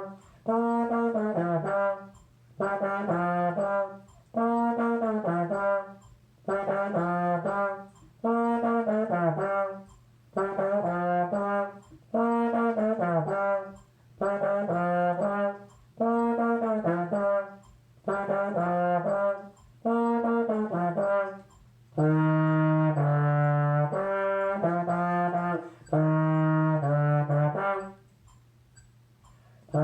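Solo trombone playing a short phrase over and over, each phrase about two seconds long with a brief breath between, the earlier ones ending in a downward slide. Near the end the notes become longer and held lower. After a short pause, playing resumes.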